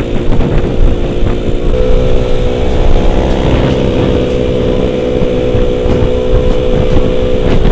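Honda Vario scooter's engine running steadily under way, its pitch stepping up a little about two seconds in, with heavy wind rumble on the microphone.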